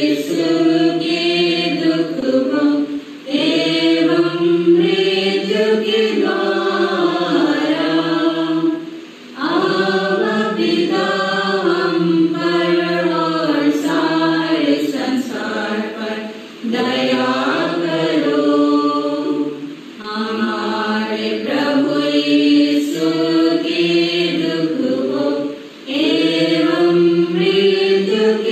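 Voices singing a devotional chant-like hymn in unison, in sung phrases of about three to six seconds with short breaks for breath between them.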